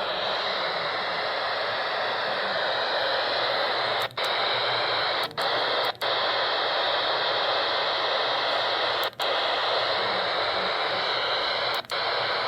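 Weather radio tuned to a weakly received NOAA Weather Radio station: a steady hiss of static with the broadcast barely coming through beneath it, the sound cutting out briefly five times.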